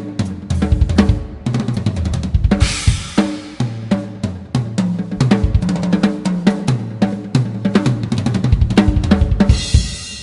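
A Premier Elite birch drum kit played in fast grooves and fills across bass drum, snare and tuned toms, with hi-hat and cymbals. A crash cymbal comes in about two and a half seconds in, and the playing ends on a cymbal crash that rings out and fades.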